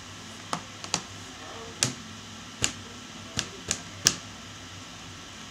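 About eight sharp clicks or taps at irregular intervals, the last about four seconds in being the loudest, over a steady low hum.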